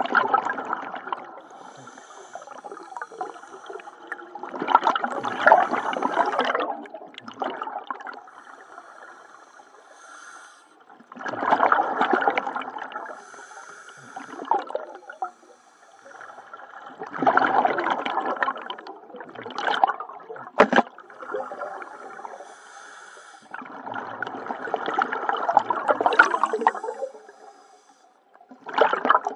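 Scuba diver breathing underwater through a regulator: a burst of exhaled bubbles rushing out about every six seconds, five times, with quieter breathing sound between them. A short sharp click comes near the end of the fourth exhale.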